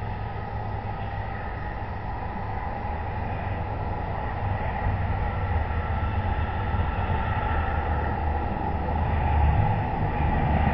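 Steady low rumble with hiss, picked up by an outdoor security camera's microphone, slowly growing louder.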